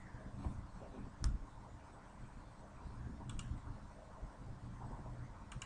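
A few sharp computer mouse clicks: one about a second in, a quick double click past the middle and another near the end, over faint low room hum.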